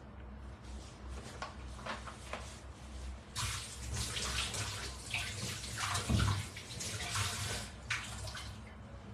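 Water running from a kitchen tap, turned on a few seconds in and off near the end, then a short second run.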